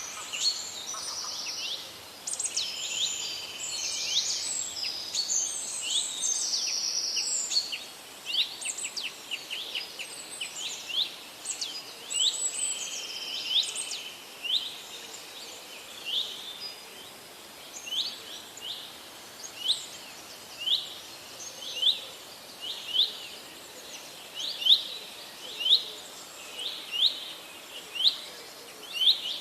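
Forest birds singing: several birds chirp and trill over one another for the first half. Then one bird takes over with a short, sharp call repeated about once a second, getting louder toward the end.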